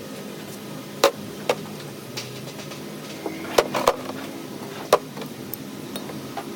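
Several sharp, short knocks and clicks of hard objects being handled, over a steady low hum.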